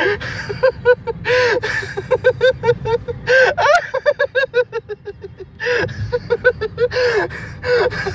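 A person laughing hard in quick runs of short, high-pitched 'ha' bursts, broken several times by loud gasping breaths. A steady low rumble of car road noise runs beneath.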